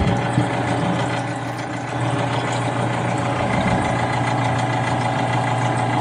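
Cornelius ice machine's water pump running with a loud, steady low hum, a little louder about two seconds in. The pump is struggling and on its way out.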